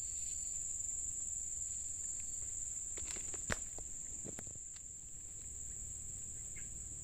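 Steady high-pitched drone of insects, unchanging throughout, with a few short clicks and a sharp snap about three and a half seconds in.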